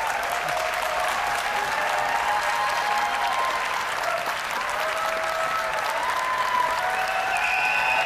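Audience applauding steadily, with a few held higher tones sounding above the clapping.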